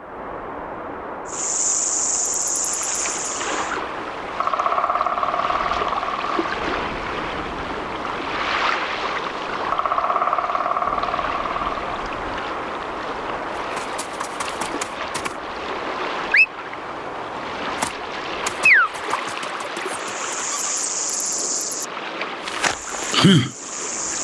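Cartoon nature ambience: a steady wash of running water, with insect buzzes coming and going and two quick rising whistles about two-thirds of the way through.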